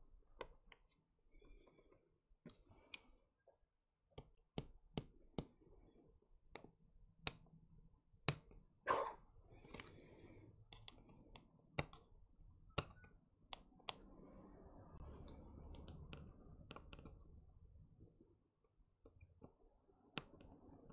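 Irregular sharp clicks and taps of small tools and plastic parts being handled inside an opened Nintendo Switch, with light rustling and scraping between them; the clicks come thickest in the middle.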